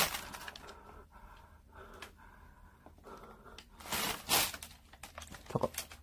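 Rummaging through a pile of junk, clothes and plastic bags: a sharp rustle at the start, faint shuffling, then two louder rustling scrapes about four seconds in.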